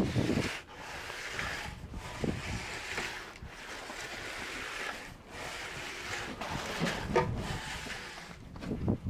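Repeated swishing, scraping strokes of a tool drawn across wet concrete being smoothed, one every second or two, with a short sharper sound about seven seconds in.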